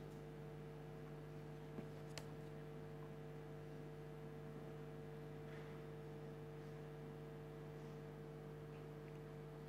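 Faint, steady mains hum with a low drone, and a single faint click about two seconds in.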